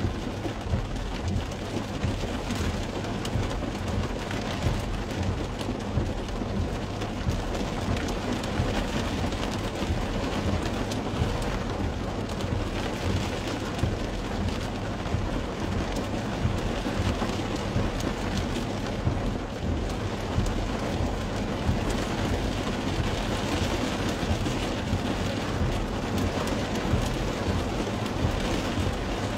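Rain falling on a car's windshield and roof, heard from inside the cabin: a dense, steady patter of drop ticks over a constant low rumble.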